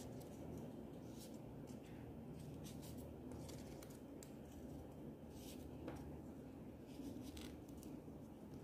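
Faint rustling and small scratchy ticks of folded paper origami units being handled and slotted together, over a steady low background hum.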